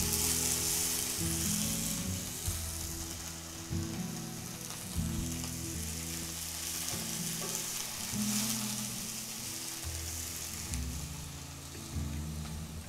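Chopped onions sizzling in hot olive oil in a stainless steel sauté pan, a steady frying hiss, with a few light knocks as a wooden spoon stirs them. They are sweating toward translucent.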